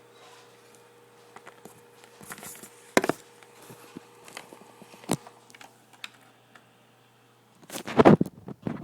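Scattered sharp clicks and knocks of small objects being handled on a desk, with a louder quick cluster near the end.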